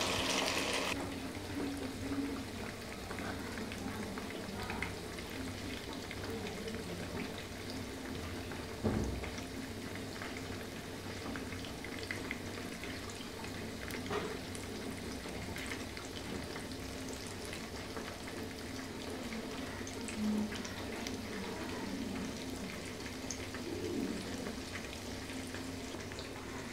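Marinated fish pieces deep-frying in hot oil in a karahi: a steady sizzle with scattered small crackles, louder for the first second or so. A single knock about nine seconds in.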